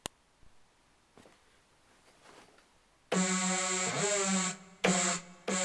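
About three seconds of faint background with a few small clicks, then synthesizer music starts abruptly and loudly: a held low note with bright upper tones, in one longer phrase and then two short ones.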